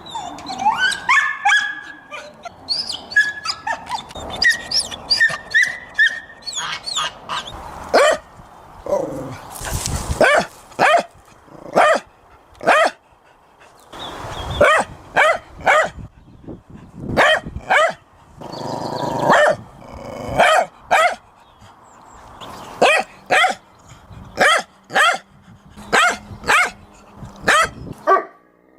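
Dogs barking in repeated short, sharp barks, with some higher whining yelps in the first few seconds.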